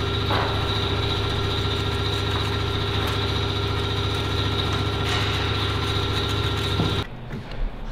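Steady mechanical hum with a constant whine from a workshop power tool or machine, running at one unchanging speed and cutting off abruptly about seven seconds in.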